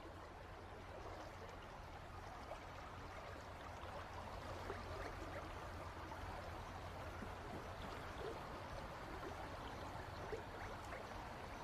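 River water running and lapping steadily, with small scattered splashes; it grows a little louder over the first few seconds.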